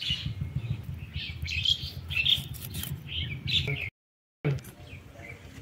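Small birds chirping over and over, with a steady low rumble underneath. The sound cuts out for a moment about four seconds in and comes back quieter.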